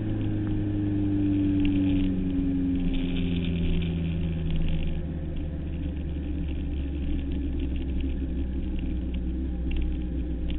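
Suzuki Hayabusa 1300's inline-four engine heard from the bike while riding, its note falling slowly over the first few seconds as the revs drop, then settling into a steady low rumble under rushing wind noise.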